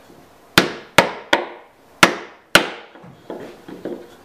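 A wooden bowtie (butterfly) key being pounded down into its glued mortise in a wood slab: five sharp blows, then three lighter taps near the end as it seats.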